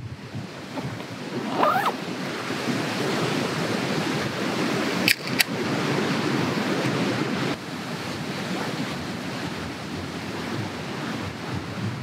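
Steady wind rushing through the trees and over the microphone. About five seconds in come two sharp clicks as a beer can's pull-tab is cracked open.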